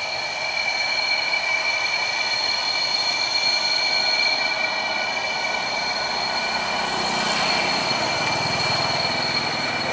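Steady high whine of aircraft turbine engines running, with a low engine rumble swelling about seven seconds in.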